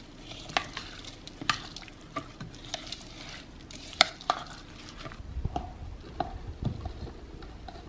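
Metal spoon stirring shredded coconut and chopped pecans into thick cooked coconut-pecan frosting in a ceramic bowl: soft wet scraping with irregular clicks of the spoon against the bowl, the sharpest about four seconds in.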